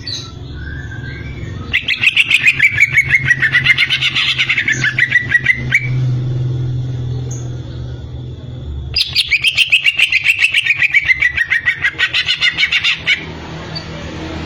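Cucak ijo (green leafbird) singing two long phrases of rapid, repeated chattering notes, each about four seconds long. Each phrase slides down in pitch and then climbs back up, over a low steady hum.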